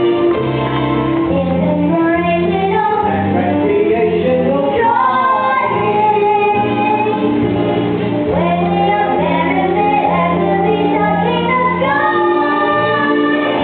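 A show tune from a stage musical: a female voice sings over an instrumental accompaniment.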